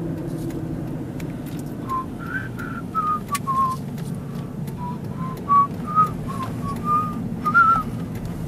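A person whistling a short tune of about a dozen notes, starting about two seconds in and stopping near the end, over the steady hum of a car driving along.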